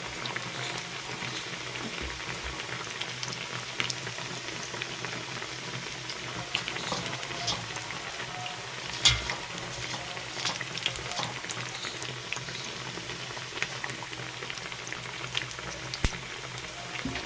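Besan-battered bread pakoras frying in hot oil: a steady bubbling sizzle with scattered sharper pops and clicks, the loudest about nine seconds in.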